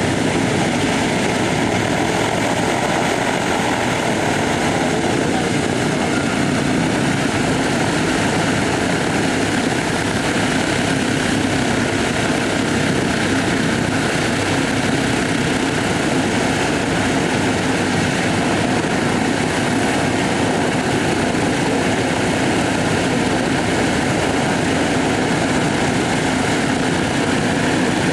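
A B-24 Liberator's four radial engines running steadily at low taxi power, with the drone of the turning propellers.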